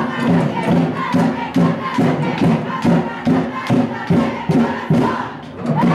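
Crowd in the stands chanting and shouting over a steady drum beat, about two to three beats a second.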